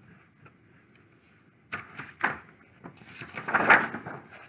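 Page of a picture book being turned by hand: a couple of light taps and handling sounds, then a louder rustle of paper about three seconds in.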